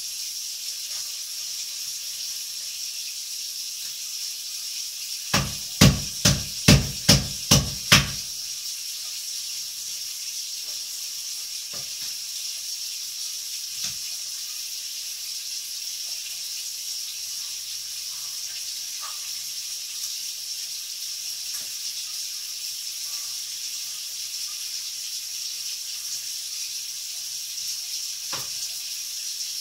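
Knife chopping on a cutting board: a quick run of six sharp strokes about five seconds in, then a few soft taps, over a steady high hiss.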